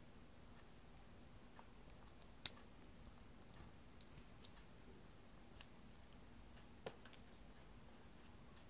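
Small Jie Star plastic building bricks clicking as they are handled and pressed together. A few sharp clicks are spaced out, the loudest about two and a half seconds in and two more close together near seven seconds.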